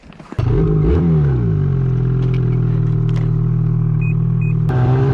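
Two-stroke snowmobile engine starting about half a second in, revving briefly and then settling to a steady idle. Two short beeps sound near the end.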